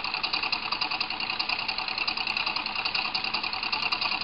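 A homemade battery-powered simple DC motor running, its wire coil spinning with a rapid, even ticking.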